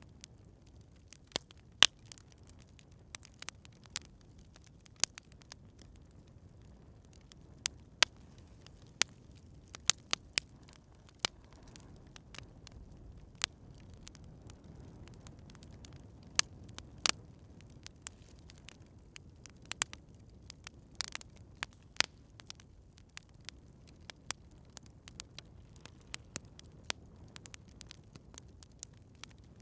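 Wood campfire crackling: irregular sharp pops and snaps, several a second, over a soft low rumble of burning.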